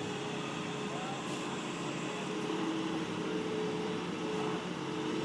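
Skid steer loader running, a steady engine drone with a humming tone that shifts slightly in pitch now and then.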